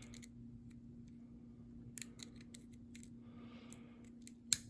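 Lock pick working the levers of a Union lever padlock: scattered small metallic clicks and scrapes, with one sharper, louder click near the end.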